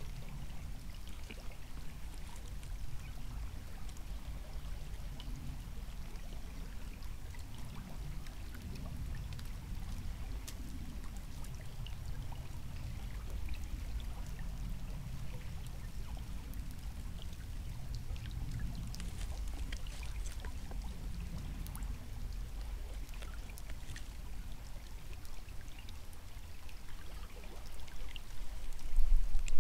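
Steady low rush of flowing river water, with faint scattered ticks; the low rumble grows louder near the end.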